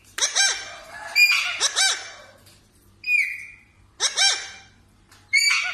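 Parrot calling: a series of about six short, loud, whistled calls, some arching up and down in pitch and some dropping, with brief pauses between them.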